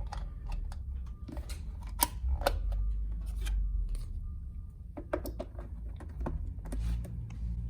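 Small plastic clicks and taps of a battery being fitted into an under-desk exercise bike's console and the battery cover put back on, with two sharper clicks about two seconds in.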